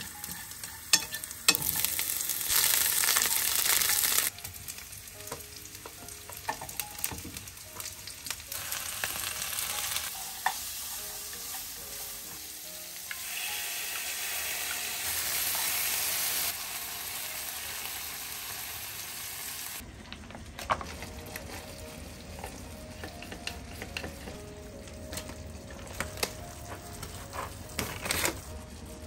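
Food sizzling in a white ceramic-coated frying pan while it is stirred with chopsticks, with light clicks of the chopsticks against the pan. The sizzle is loudest in two spells, from about a second and a half in to about four seconds and again around the middle, and is softer after that.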